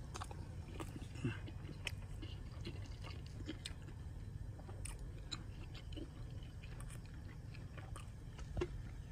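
A person chewing a mouthful of a soft flour-tortilla breakfast burrito with egg, beef and kale, with scattered small clicks of the mouth, over a steady low background rumble.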